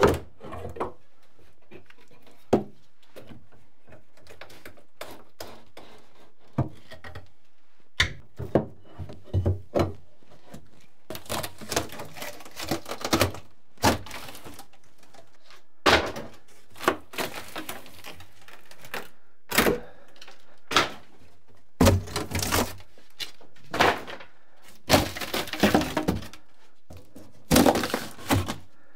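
Old drywall being broken and torn off closet wall framing. Scattered sharp knocks come first, then longer bursts of cracking and tearing that grow more frequent in the second half.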